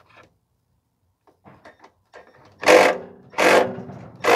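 Socket wrench on a long extension tightening the 10 mm nut on a Toyota Corolla's front exhaust heat shield: a few light ratchet clicks, then three loud metal clanks with a short ring, each under a second apart, in the second half.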